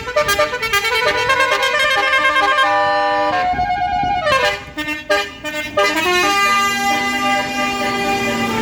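Bus basuri telolet horn playing a tune of stepped notes, with a falling siren-like sweep about three and a half seconds in, then settling into long held notes.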